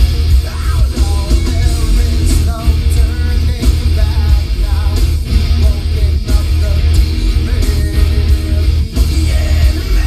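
A rock song with vocals playing loud through a car stereo, with strong deep bass from a Rockford Fosgate T1S1-12 12-inch subwoofer, heard inside the car's cabin.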